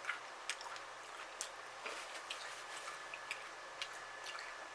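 Faint, irregular mouth clicks from chewing fried chicken wings dressed with honey and hot sauce, close to the microphone.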